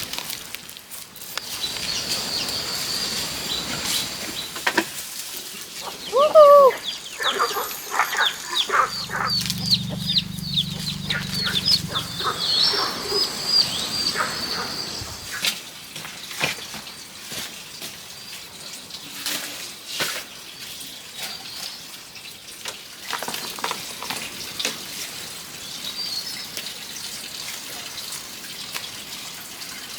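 Farmyard sounds: a run of quick, high chirps from birds, likely chickens or chicks, with a short loud call about six seconds in. A low hum runs for a few seconds near the middle, and there are scattered knocks and rustles.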